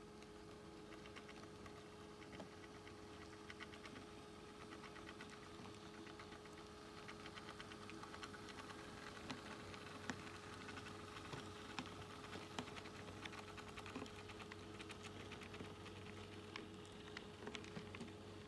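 HO scale model train running past, a Pennsylvania Railroad steam locomotive with its cars: faint rapid clicking of the wheels over the rail joints, loudest in the middle as it passes closest.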